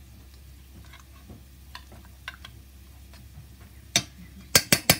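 Onions frying with a faint sizzle and scattered small ticks. About four seconds in comes one sharp click, then a fast, even run of sharp metallic clicks, about eight a second, as a spoon works tomato paste out of the small metal tin.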